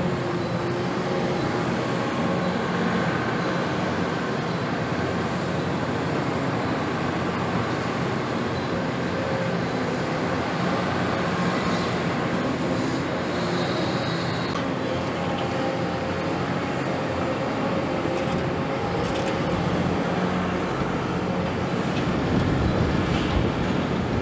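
Caterpillar 329E hydraulic excavator's diesel engine running steadily under load while it digs and swings. Near the end there is a louder rumble as a bucketful of sand is dumped into a dump truck's bed.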